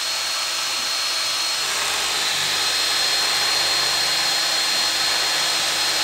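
Cordless drill driving a hex-head screw at an angle into wood, its motor whining steadily without a break.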